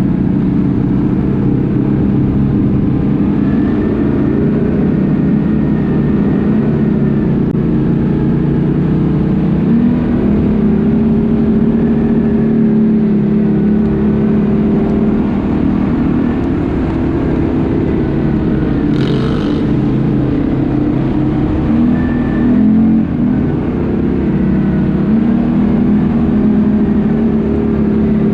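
ATV engine running steadily under way, its pitch rising and falling a little with the throttle. A short hiss cuts in briefly about two-thirds of the way through.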